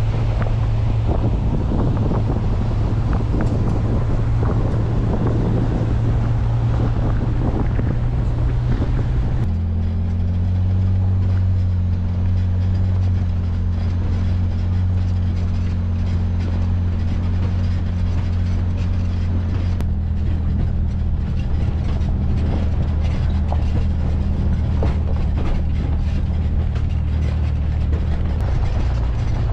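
Ford F-150 Raptor's twin-turbo EcoBoost V6 running steadily under load while towing a camper on a gravel road, with road and wind noise on an outside-mounted camera. About ten seconds in, the engine note steps abruptly lower.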